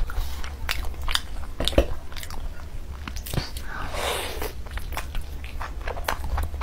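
Close-miked eating sounds: a person biting and chewing curried meat eaten by hand, with many sharp mouth clicks and a longer noisy stretch about four seconds in as a piece is bitten off, over a steady low hum.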